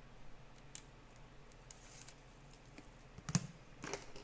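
Trading cards and their plastic holders being handled on a table: scattered light clicks and taps, with a louder knock a little over three seconds in.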